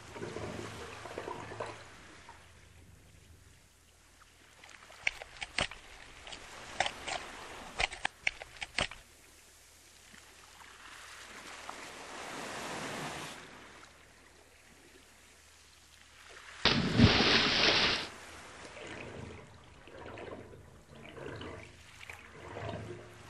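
Soft water sound effects, trickling and washing, broken by a run of sharp clicks a few seconds in. About two thirds of the way through comes the loudest event, a sudden rush of noise lasting just over a second.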